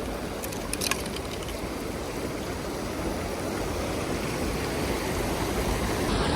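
Mountain stream water rushing over rocks, a steady noise that grows a little louder near the end, with a few light clicks about a second in.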